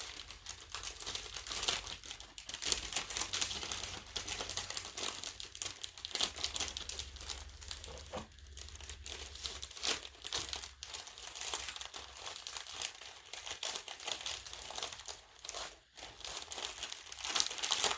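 Plastic bag crinkling and rustling as it is handled, with dense irregular crackles.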